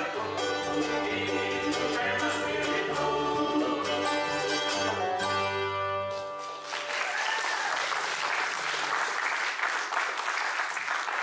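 Bluegrass band of fiddle, banjo, mandolin, upright bass and acoustic guitar playing the last bars of a gospel song, which ends about six and a half seconds in. Audience applause follows and continues.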